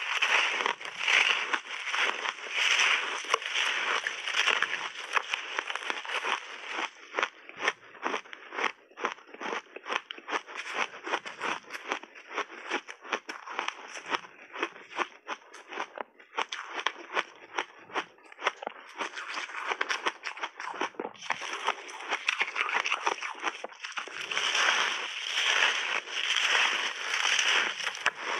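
Crunchy ice being bitten and chewed close to a clip-on microphone: a dense run of crunches and crackles, loudest near the start and again in the last few seconds.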